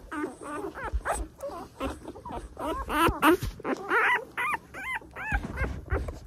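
Newborn American bully puppies squealing and whimpering: many short, high, rising-and-falling cries, several a second and overlapping, dying away about five seconds in. A dull low thump follows near the end.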